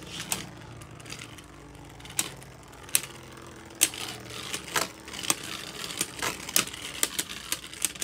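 Two Beyblade Burst spinning tops whirring in a plastic stadium and clacking sharply against each other. The hits come more often in the second half as the tops close in.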